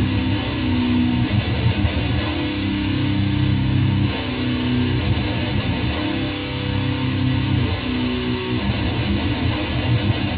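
Distorted electric guitar playing a fast death metal riff.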